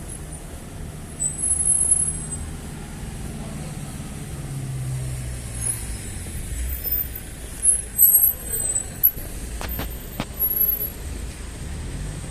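Street traffic: vehicle engines running and passing with a low hum, with scattered brief, very high-pitched squeaks and a few sharp clicks near the end.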